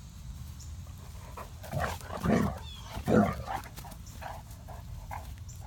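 A Great Dane puppy and an adult Great Dane at rough play, giving a few short barks. The two loudest come about two and three seconds in, with softer ones after.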